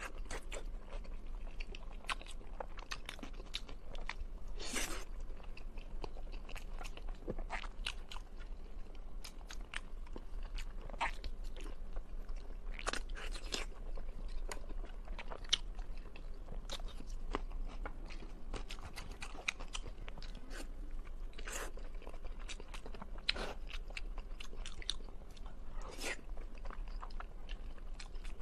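A person chewing braised meat close to a clip-on microphone, with frequent uneven crunches and sharp wet mouth clicks.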